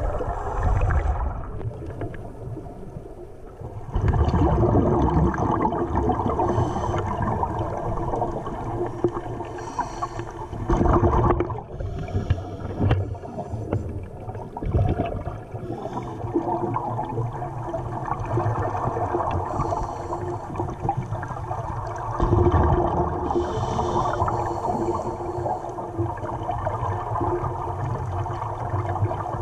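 Scuba divers' regulators underwater: exhaled air bubbling out in several long bursts a few seconds apart, with quieter rushing between them.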